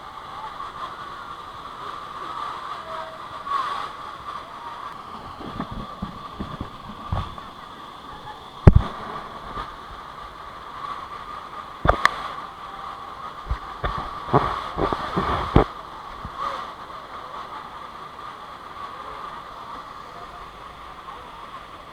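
Steady rush of a monsoon stream or waterfall, with a few sharp knocks and thumps scattered through it. The loudest knock comes a little under halfway through, and a cluster follows about two thirds of the way in.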